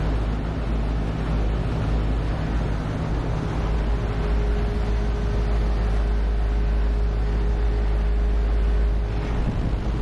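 Carrier 50T-series 7.5-ton rooftop unit running in two-stage cooling, both compressors and both condenser fans on, heard up close at the condenser coil: a steady hum and fan rush with a low rumble. A steady higher tone joins a little under four seconds in.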